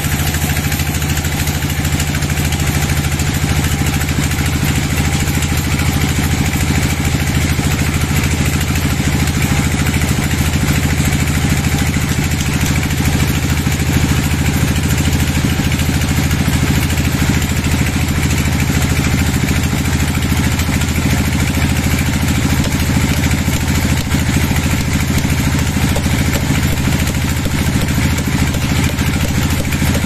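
Band sawmill running with a steady, unchanging engine-like drone.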